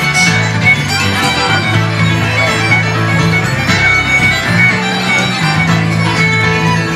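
Live folk band playing a lively fiddle-led Celtic and French-Canadian dance tune over a steady bass line.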